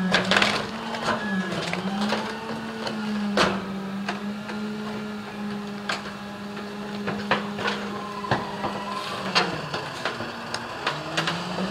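Rear-loading garbage truck's engine and hydraulic packer running under load: a steady whine that sags and recovers twice, with sharp cracks and knocks throughout as discarded furniture and trash are crushed in the hopper.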